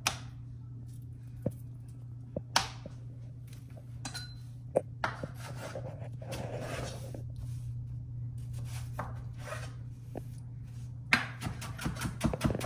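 Chef's knife cutting a red onion on a wooden end-grain cutting board: a few scattered knocks of the blade on the board and some rustling, then a quick run of chops, several a second, starting about eleven seconds in. A steady low hum sits underneath.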